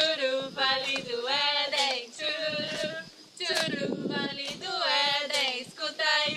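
Three women singing a song together, clapping along.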